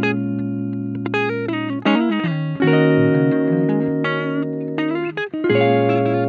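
Background music led by guitar, with sustained chords changing every second or two.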